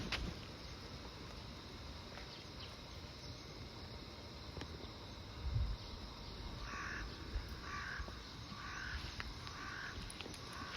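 A bird calling five times, about a second apart, starting a little past halfway, over a faint steady background. There is a single low thump about halfway through.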